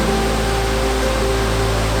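Background music of slow, held chords over a low bass note, the chords changing about once a second, laid over a steady rush of falling water.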